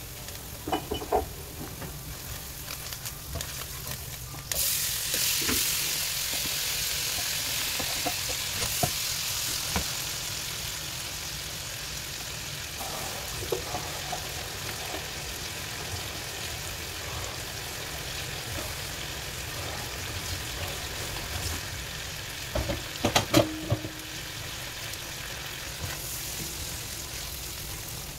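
Vegetables frying in oil in a nonstick wok. The sizzle jumps up suddenly about four and a half seconds in as chopped tomatoes go into the hot pan, then eases to a steady fry. A silicone spatula stirring the pan gives scattered knocks and scrapes, most near the end.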